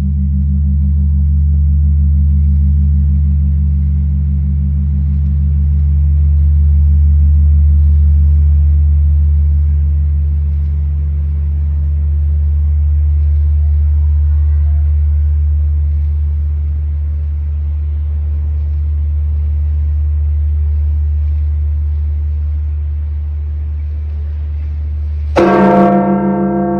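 The Campana Mayor, 'Santa María de Guadalupe', the great bell of Mexico City's Metropolitan Cathedral, tolled as a death knell. Its deep hum rings on, slowly swelling and fading in waves, until it is struck again near the end with a bright clang that rings out over the hum.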